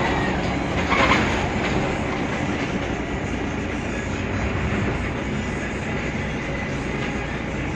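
Mercedes-Benz Citaro city bus on the move, heard from inside: its OM 906 hLA straight-six diesel running under a steady rumble, with the body rattling and a louder clatter about a second in.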